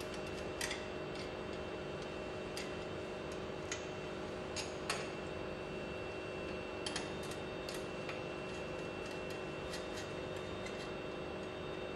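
Scattered light clicks and taps of hand tools working on a progressing cavity pump's tie rods, at irregular intervals, over a steady background hum.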